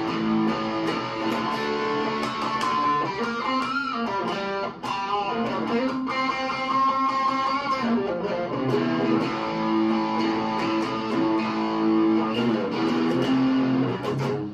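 Strat-style electric guitar with a maple neck played through an amplifier: a steady run of picked notes and chords, with one brief pause about five seconds in.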